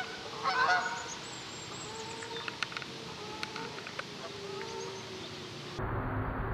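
A flock of Canada geese honking as they fly in low, with a burst of honks about half a second in, then fainter calls and a few sharp clicks. Near the end the sound switches abruptly to a steady hiss.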